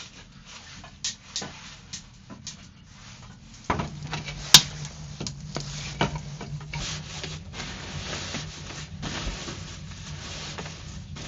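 Rubbing and light knocking of things being handled, with one sharp click about four and a half seconds in. A steady low hum and a denser rushing noise set in just before the click.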